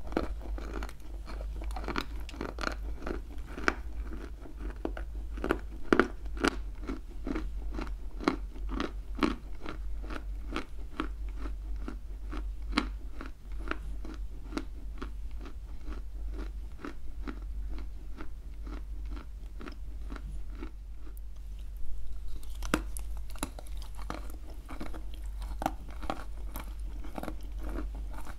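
Close-miked crunching and chewing of a dry chunk of edible clay, bitten off and ground between the teeth at about three crunches a second. The crunching pauses briefly about 21 seconds in, then resumes.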